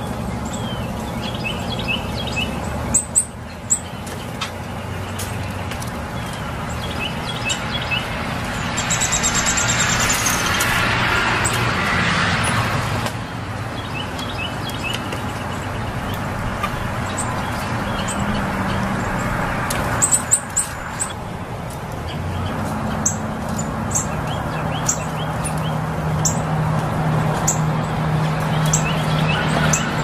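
Small birds chirping in short, high bursts at scattered moments over a steady low hum of background traffic, which swells louder about nine to thirteen seconds in.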